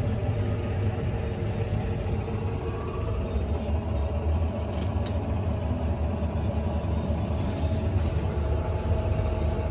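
Farm tractor's diesel engine running steadily at a constant low drone.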